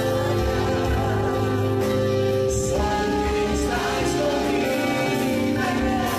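Live gospel worship music: a church band plays sustained chords over a steady bass while voices sing together.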